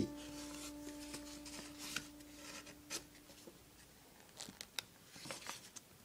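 Sheet of 80 g A4 printer paper being creased and folded by hand: faint scattered crackles and rustles, clustered near the end.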